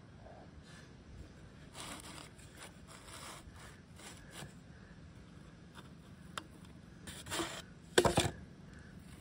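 Plastic pipe being twisted and worked loose from setting concrete: short gritty rubbing and scraping sounds, with a louder burst about eight seconds in as it comes free.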